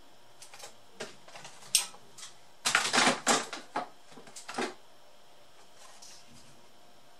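Clicking and clattering of a laptop motherboard with its cooling fan and heatsink attached as it is handled and set down on a wooden desk. The clatter comes in a few light clicks at first, then a dense, loud run of knocks about three seconds in, trailing off by about five seconds.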